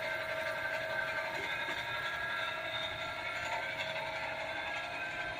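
Pottery-workshop machinery running steadily: a constant mechanical whine of several steady tones over a rough hum.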